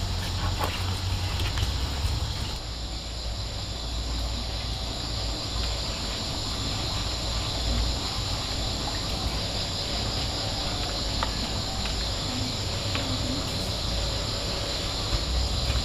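Steady outdoor background noise in a field: a low rumble under a constant high hiss, with a few faint ticks.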